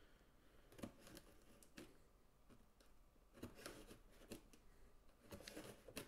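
Faint, scattered scrapes and snips of scissors cutting at packing tape on a cardboard box, a few short strokes spread a second or so apart.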